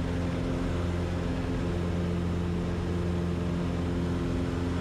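Cessna 150's four-cylinder Continental O-200 engine and propeller running steadily at climb power just after a touch-and-go, an even drone heard from inside the cockpit.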